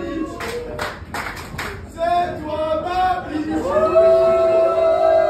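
Wrestling crowd clapping in rhythm, a few sharp claps in the first two seconds. Then the crowd sings a chant together in unison, with long drawn-out held notes.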